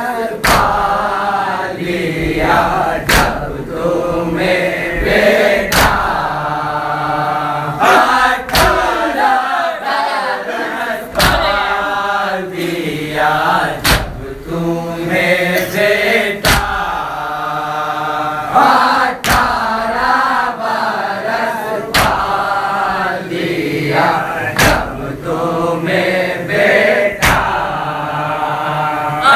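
A group of men chanting an Urdu nauha, a mourning lament, in unison, with sharp slaps of hands striking chests (matam) every one to three seconds.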